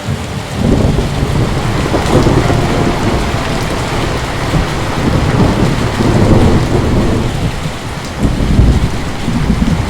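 Heavy rain with a long roll of thunder that starts about half a second in and rumbles on in waves, easing briefly near the end before swelling again.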